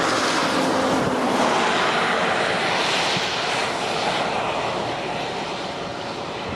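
Steady rushing noise of heavy rain and wind around a car, easing a little near the end.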